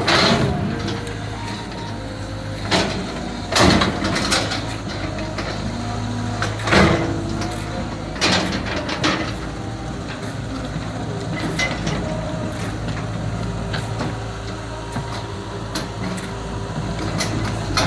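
Caterpillar 320 GC excavator's diesel engine running steadily, with several sharp clanks and knocks at irregular intervals, the loudest about four and seven seconds in.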